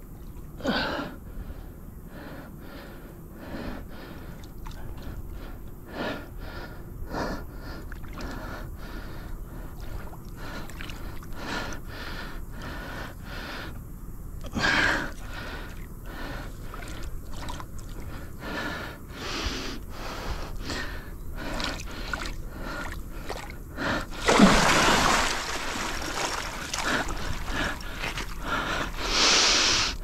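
A man breathing hard from exertion, gasping and wheezing in quick repeated breaths. Louder rushes of noise come about halfway through, around 24 seconds in, and again near the end.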